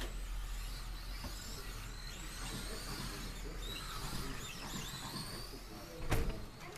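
High-pitched whine of several Kyosho Mini-Z 1:28-scale electric RC cars racing, the pitch rising and falling as they accelerate and brake through the corners. A sharp knock comes about six seconds in.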